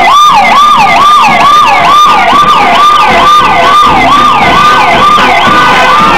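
Vehicle siren sounding a fast yelp, its pitch sweeping up and down about twice a second.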